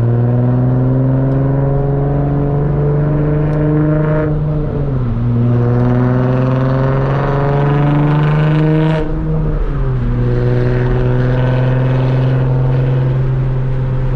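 Nissan Z's V6 engine under acceleration, its pitch climbing slowly through the gears. It drops twice, about five and about ten seconds in, as the car upshifts, then holds a steady cruise.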